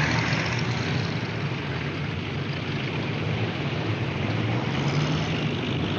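City street traffic: cars running by in a steady dense hiss with a low engine hum underneath.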